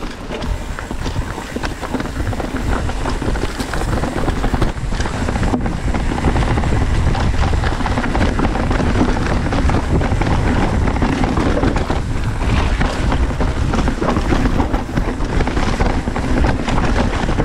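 Wind buffeting the microphone and mountain bike tyres rolling over a dirt trail at speed, with many small knocks and rattles from the bike. It gets louder about five seconds in and stays loud.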